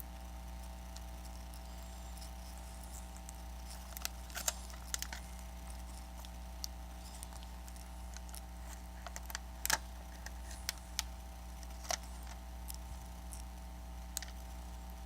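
Scattered light clicks and taps of small repair tools and tablet parts being handled, over a steady low electrical hum.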